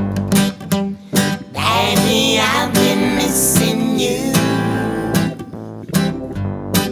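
A song with strummed acoustic guitar and a singing voice that comes in about a second and a half in.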